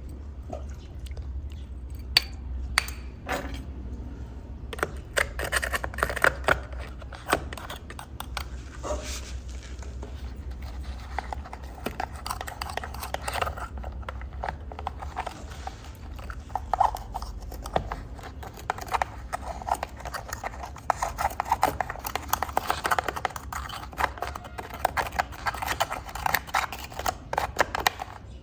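Scratchy rubbing, scraping and clicking of hand-cleaning a muddy 1:24 toy car, with many small sharp clicks that come thicker in the second half. A low steady hum runs beneath it and fades about two-thirds of the way through.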